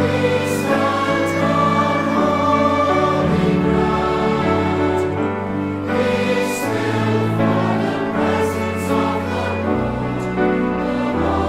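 Choral music: a choir singing sustained chords over a low accompaniment.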